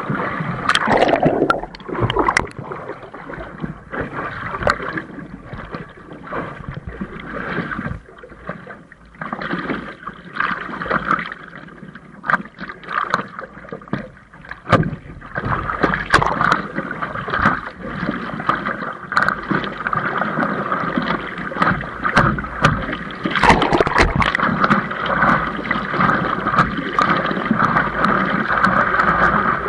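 Wind buffeting the microphone over the uneven rushing noise of a windsurf board moving, with scattered knocks; it grows louder and steadier in the second half.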